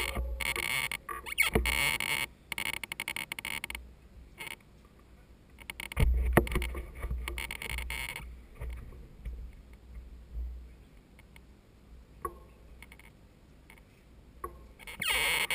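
Wind buffeting a helmet-mounted action camera's microphone in gusts, loudest in the first few seconds and again about six seconds in, with scattered clicks and rustles from mountain bikes being shuffled forward in a queue.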